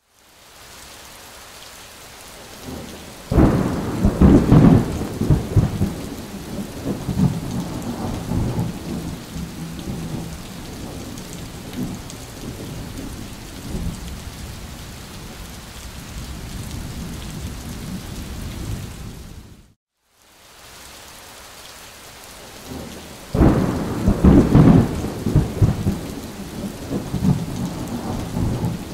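Thunderstorm: steady rain with two long rolls of thunder, one starting about three seconds in and another about twenty-three seconds in. The sound cuts out for a moment before the second roll and then starts over, like a looped storm track.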